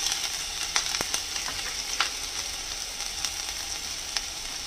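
Finely chopped ginger frying in hot oil with whole spices: a steady sizzle with scattered crackling pops.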